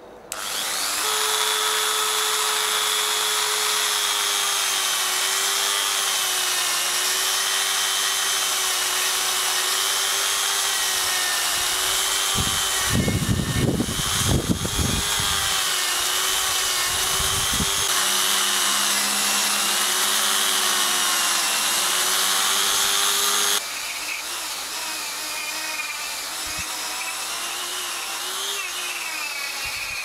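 Small handheld rotary tool starting up and running with a steady, slightly wavering whine, its abrasive wheel grinding and polishing the brass case of an old petrol lighter. Heavier rubbing noise comes in around the middle, and the sound drops to a quieter level a little later.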